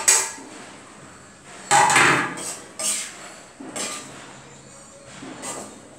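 Steel kitchenware clattering: a steel plate set down on the counter about two seconds in, the loudest sound, with a brief ring. A spoon then knocks a few times in a frying pan as the curry is stirred.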